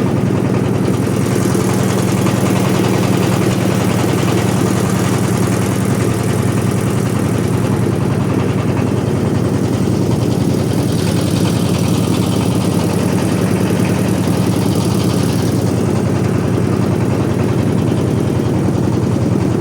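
Small passenger boat's engine running steadily at cruising speed, a constant low hum, with a fainter hiss above it that swells for a few seconds in the middle.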